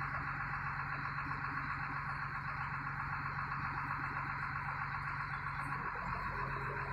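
Mobile crane's engine and hydraulics running steadily while the telescopic boom retracts: a low hum under a steady high hiss, the low hum shifting about six seconds in.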